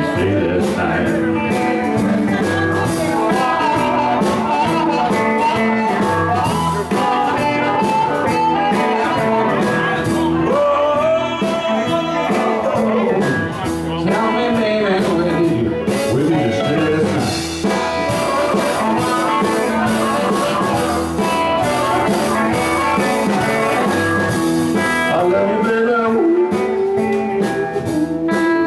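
Live electric blues band playing: electric guitars with bending lead lines over the band.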